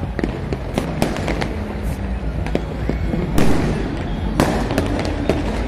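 Fireworks and firecrackers going off across the city: rapid scattered cracks and pops, with two louder bangs about three and a half and four and a half seconds in, over a steady low rumble.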